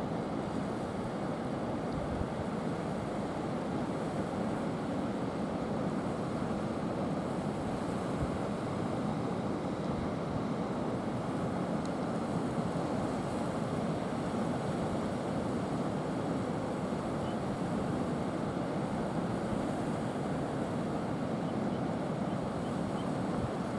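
Steady noise of sea surf against rocks, mixed with wind.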